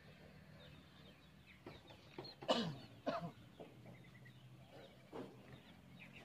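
A chicken calling: a loud call about halfway through that falls sharply in pitch, then a shorter second call, with a few fainter calls later, over a faint steady low hum.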